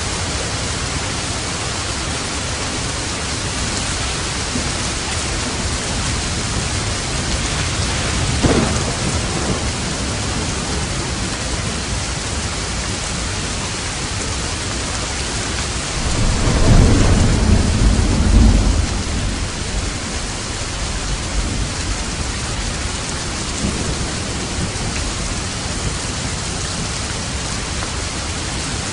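Steady heavy rain, with a short thunder crack about eight seconds in and a louder low rumble of thunder rolling for about three seconds past the middle.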